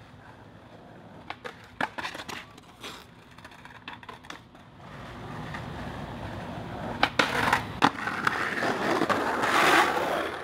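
Skateboard: a few light taps and clacks, then the wheels rolling on rough concrete, getting louder, with sharp knocks of the board a little after seven seconds and again near eight seconds in.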